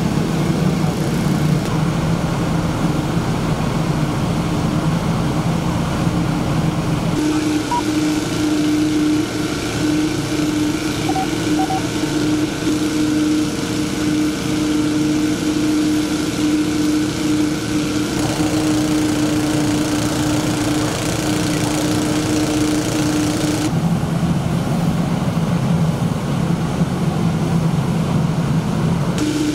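Fire engine running steadily, a constant engine hum under a hiss of noise. The hum's pitch jumps abruptly about seven seconds in and again a few times later.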